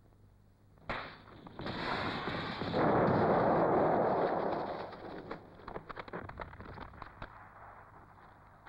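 An explosion in a film battle scene. A sharp crack comes about a second in, then a loud blast swells and dies away over a few seconds. Scattered crackles and small knocks follow as it fades.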